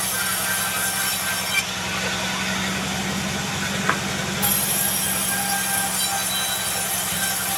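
Sawmill band saw running steadily, its blade cutting through a log of red-grain Bayur wood: a constant low hum with hiss over it and a single short click about halfway.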